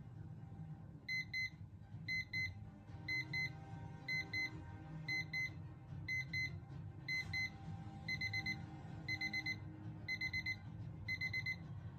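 DreamSky Jumbo Display alarm clock going off: high electronic beeps in pairs about once a second, switching about eight seconds in to quicker bursts of four beeps each second.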